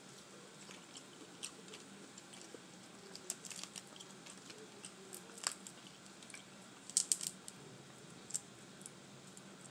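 Boiled crawfish shells being cracked and peeled by hand and eaten: faint, scattered cracks and clicks with eating sounds, a quick cluster of louder clicks about seven seconds in.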